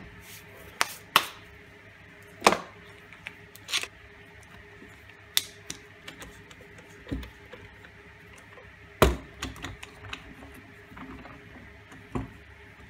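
Irregular clicks and knocks of plastic screw clamps being set on and tightened around two glued wooden discs, with the pieces handled on a wooden workbench; the loudest knock comes about nine seconds in.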